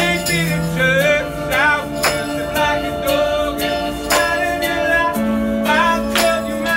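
A man singing a slow song live over electronic keyboard chords, with a sharp percussive beat about once a second.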